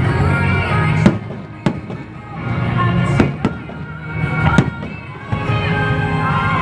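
Aerial fireworks bursting: about five sharp bangs over a few seconds, with music playing alongside.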